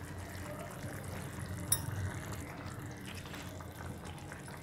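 Tomato gravy simmering in a clay pot on a gas burner, a faint steady bubbling hiss. A single sharp click comes just under two seconds in.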